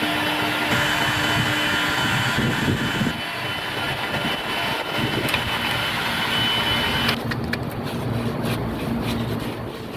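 A power tool's motor running steadily with a faint whine; about seven seconds in the whine stops and the running turns rougher, with scattered clicks.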